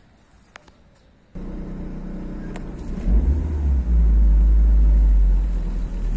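Car driving, heard from inside the cabin: engine and road noise starting abruptly about a second and a half in, with a heavy low rumble that grows much louder about three seconds in.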